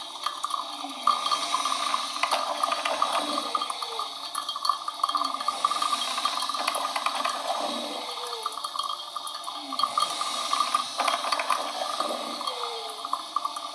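Coffee machine running: a steady watery hiss with a short gurgle every second or two.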